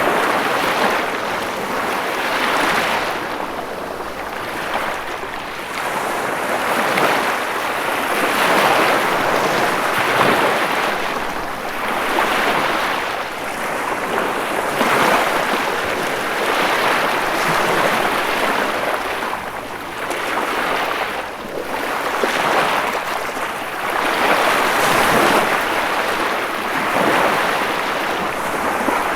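Ocean waves washing onto a shore, a continuous surf rush that swells and eases every few seconds.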